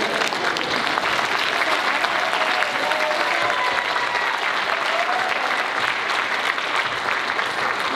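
A large audience applauding: dense, steady clapping.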